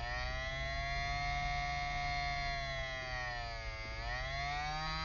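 Small electric motor of a handheld adhesive-removal tool whining steadily as its tip spins on the glue left on the iPhone display. Its pitch sags and recovers near the end as the tip is pressed harder into the adhesive.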